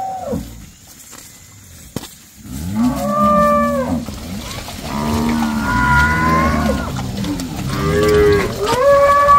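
Several cattle mooing, their long calls overlapping, starting about two and a half seconds in.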